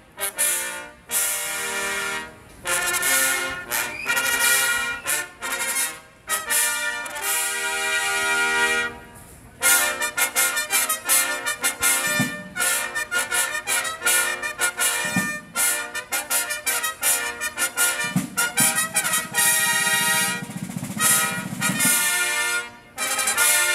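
Herald trumpet ensemble playing a military fanfare in bright, mostly short repeated notes, with field drums beating underneath. There is a brief break about nine seconds in, after which the brass comes back in.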